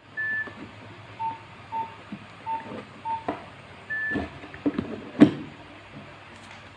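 Nokia 1202 keypad beeps: a higher beep, four shorter lower beeps about half a second apart, then another higher beep, followed by a few sharp knocks of the phone being handled, the loudest about five seconds in.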